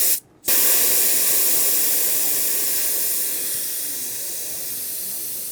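Air hissing out of a bicycle tyre's valve as the tyre is let down. The hiss stops briefly just after the start, resumes, then slowly fades as the pressure drops.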